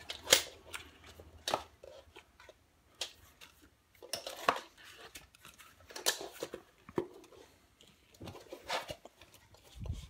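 Spiral-bound books handled on a wooden table: a series of sharp taps and clacks as the covers are turned and the books are set down and squared, with paper rustling between them and a dull thump near the end.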